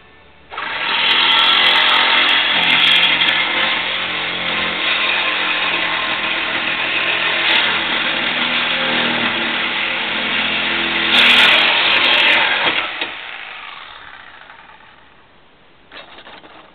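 A motor running, starting abruptly about half a second in and steady with small shifts in pitch, then dying away over a couple of seconds near the end.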